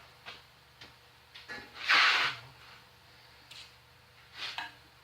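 Parts being handled on a workbench machine: a few light clicks and knocks, and one louder, brief scraping rush of noise about two seconds in.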